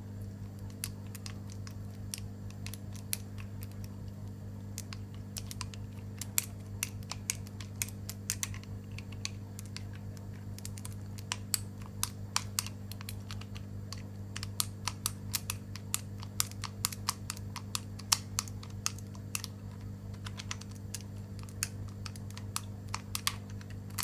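Irregular light clicks from a 7-pin tubular lock pick being worked in a tubular disc lock as its feeler pins set, sparse at first and coming thicker after a few seconds, over a steady low hum.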